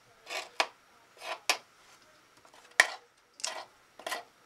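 Small hand-handling noises from working on a plastic toy drone with a super glue tube: a run of short rustles and light clicks about a second apart, with one sharper click a little under three seconds in.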